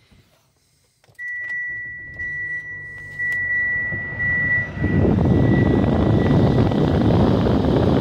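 Push-button start of a Mitsubishi SUV's engine. A few clicks and a steady high electrical tone as the ignition comes on, then about five seconds in the engine starts and runs at a steady idle.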